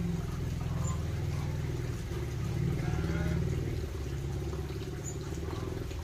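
A steady low mechanical drone, like a motor or engine running, with a few faint chirps from small aviary birds.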